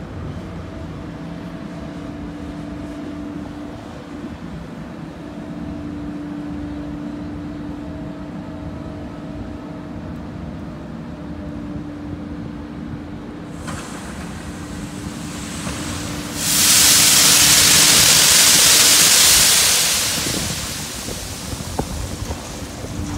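Crane machinery humming with a steady low rumble. Past the middle a loud rushing hiss swells for about four seconds, then tapers off, as a crane-hung hopper box dumps acacia woodchips into the ship's hold.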